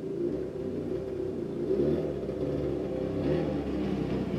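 1970 Ski-Doo Olympic snowmobile's 399cc two-stroke twin running under throttle as it drives by. The engine pitch rises and falls, and it grows louder as the sled comes closer.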